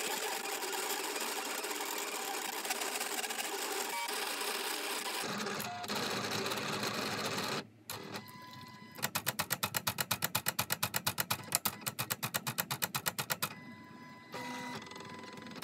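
Silhouette Cameo 3 cutting machine sketching and cutting with its pen and blade, fast-forwarded. Its carriage and roller motors whir steadily, then from about halfway through break into a fast even run of pulses, roughly seven a second, before easing off near the end.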